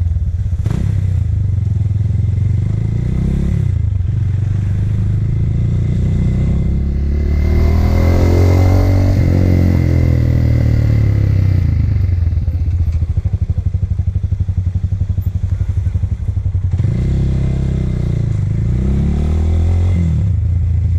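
Small motorcycle engine running under way, its revs climbing and falling with the throttle and gear changes. It is at its loudest about eight seconds in, with a rush of wind noise, then settles, and climbs again near the end.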